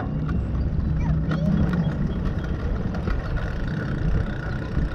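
Wind rumbling on the microphone with the ride noise of a moving bicycle: a steady low rush with small scattered clicks and rattles.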